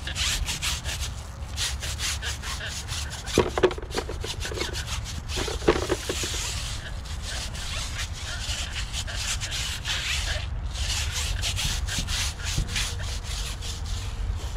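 Stiff-bristle tire brush scrubbing a wet, cleaner-sprayed car tire sidewall in rapid back-and-forth strokes, several a second, with brief pauses. A couple of short knocks a few seconds in.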